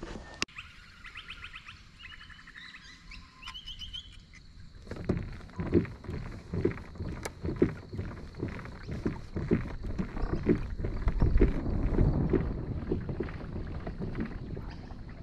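Birds chirping and trilling for the first few seconds, then a kayak moving across the water from about five seconds in: irregular sloshing of water against the hull, with gusts on the microphone.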